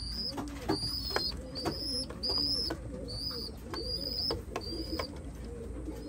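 Pigeons cooing in a loft: low, rounded coos repeating. A steady string of short high chirps, about two a second, runs through it.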